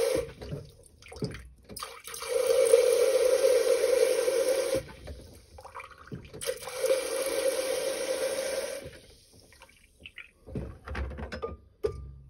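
Hand-pulled beer engine pumping liquid through its swan-neck spout into a glass: two long strokes of rushing flow, each about two and a half seconds. A few knocks near the end as the glass is handled.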